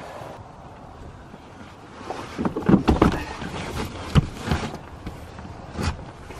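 Soft-sided suitcase being lifted and shoved into an SUV's cargo area: a run of dull thumps and scuffs, the sharpest about four seconds in.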